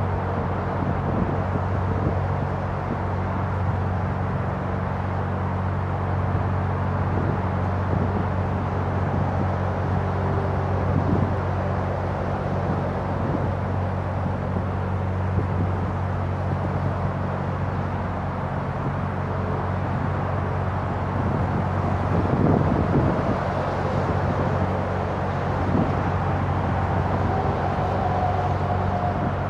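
A narrowboat's diesel engine running steadily as the boat cruises, a constant low hum, over a steady rush of traffic noise. A faint whine comes in near the end.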